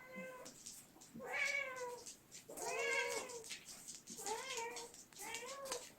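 Domestic cat meowing repeatedly: about four drawn-out meows, each rising then falling in pitch.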